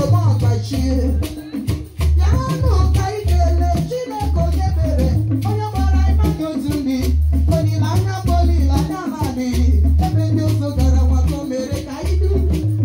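Igbo praise song performed live: a woman sings the lead melody into a microphone with backing singers, over a steady deep beat about every three-quarters of a second and rattling shakers.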